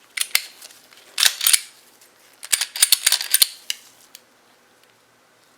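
Glock 42 pistol's slide being fitted back onto the frame and worked to test function: sharp metallic clicks and clacks in uneven clusters, busiest in the middle, stopping about four seconds in.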